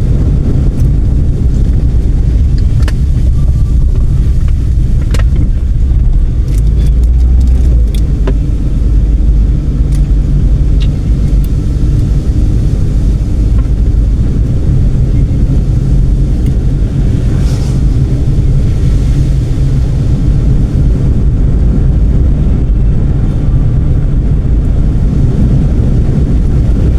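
Car driving: a steady low rumble of engine and road noise, with a few sharp clicks or knocks scattered through and a brief hiss about two-thirds of the way in.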